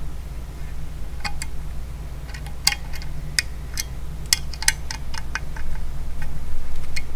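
Small metal clicks and ticks of an Allen key working the Allen-head bolts on an LED light's metal mounting bracket, coming irregularly a few times a second, over a steady low hum.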